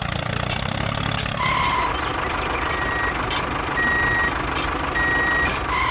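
Vehicle engine running with a low, steady rumble while a reversing alarm sounds five short beeps about a second apart, starting about a second and a half in.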